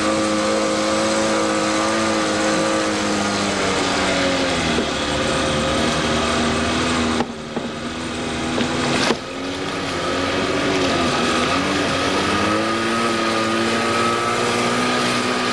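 Motorboat engine running under way, easing off to a lower pitch a few seconds in and speeding back up near the end, with a brief dip in the sound around the middle.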